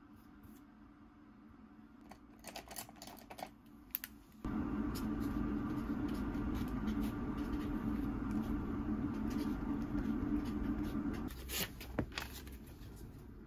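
Light taps of a stylus on a tablet screen, then, about four seconds in, a steady hum from a household appliance starts abruptly and runs on. It eases after about eleven seconds, with a single sharp click near twelve seconds.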